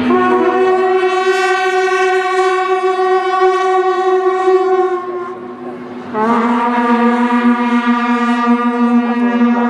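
Long horn-like notes of a show soundtrack played over loudspeakers: two steady tones, each held about five seconds, with a short break about five seconds in and a slight upward slide as the second begins.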